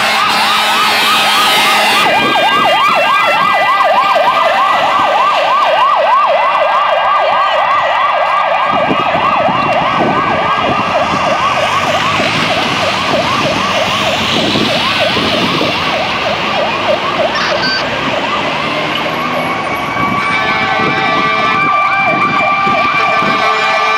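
Fire truck sirens: an electronic yelp siren sweeping rapidly up and down several times a second, with a second, steady siren tone at the start and again near the end.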